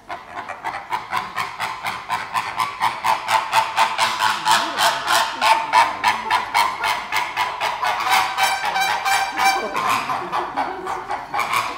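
A bird calling loudly in a long, rapid series of short repeated calls, about four a second.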